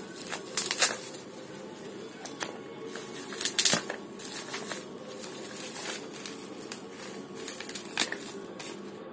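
Plastic packaging crinkling and rustling as hands unwrap a parcel, with irregular sharp crackles, loudest about three and a half seconds in.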